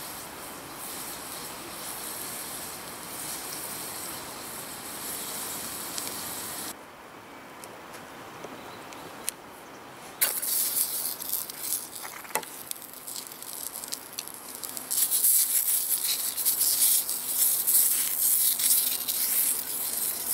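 Food sizzling in oil in a small cast-iron skillet over charcoal embers: a steady fine sizzle at first, which drops off about a third of the way through. About halfway a louder, crackling sizzle with sharp pops sets in, as sausages fry in the hot pan, and it grows louder again near the end.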